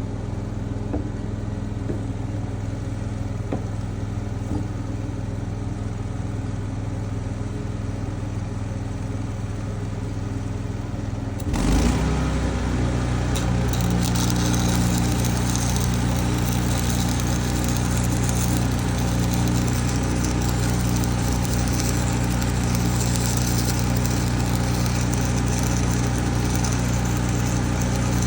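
An engine running steadily; about twelve seconds in it speeds up and gets louder, and a rough high hiss joins it.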